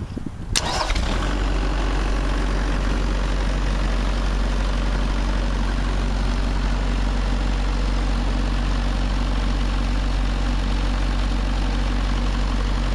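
Kubota V2203 four-cylinder diesel engine cold-starting on its glow plugs: a click a little over half a second in, the engine catches about a second in, then runs at a steady idle.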